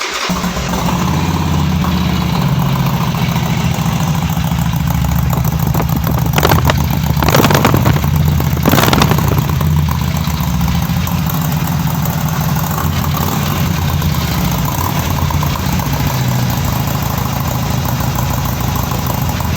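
Harley-Davidson Sportster 883 Iron's air-cooled V-twin idling with a loud, uneven low beat, just after being started. It is a little louder for a few seconds around the middle.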